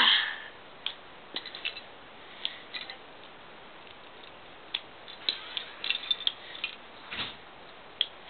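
Lego bricks being pulled apart and handled: scattered sharp plastic clicks and clatters at irregular intervals, some coming in quick little clusters.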